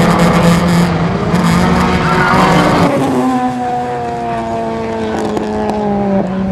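Several racing cars' engines running hard on a circuit. About three seconds in, the sound changes from a dense, noisy engine drone to clearer, steady engine notes of cars lapping nearby.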